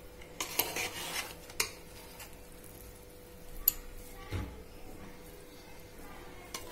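Metal ladle scraping and clinking against the inside of a metal pot as cooked biryani rice is stirred and turned over. There are a few scrapes and clinks early in the stirring, then one sharper clink and a dull knock a little past halfway.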